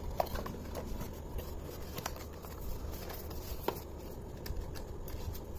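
Hands handling a small cardboard retail box and its tray, making soft taps, rustles and a few sharper clicks as the earbud case is packed away and the box is closed, over a steady low hum.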